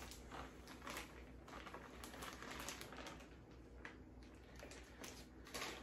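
Faint, irregular light tapping and rustling of powdered sugar being sifted through a small hand-held mesh sieve.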